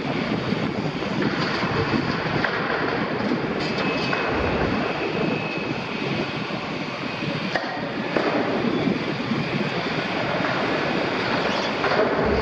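Liebherr 974 demolition excavator's diesel engine running under load while its shear works the steel of an oil tank, with metal grinding and brief high squeals of steel on steel.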